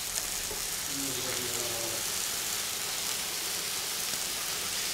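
Beef fillet and lamb loin searing in hot oil in a frying pan: a steady, even sizzle.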